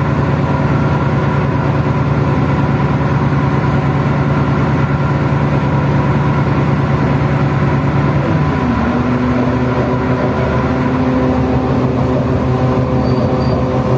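Diesel engine of a KRD diesel railcar running steadily as the train pulls away, heard from inside the passenger car. About eight seconds in, the engine note steps down and changes.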